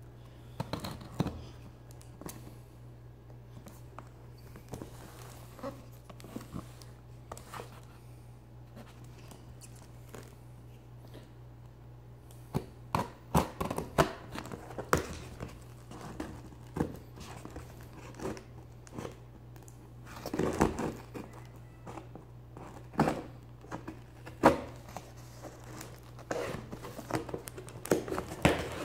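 Handling a shipping package: scattered knocks, rustles and crinkles of cardboard and plastic wrapping, sparse at first and busier from about halfway, over a steady low hum.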